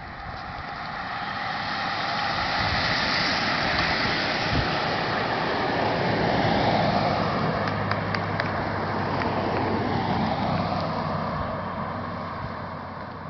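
A pack of road-race cyclists and their following vehicles passing close by: a rush of tyre and wind noise that swells to its loudest about halfway through and then fades, with a steady engine hum in the second half as the motorbike and cars go by.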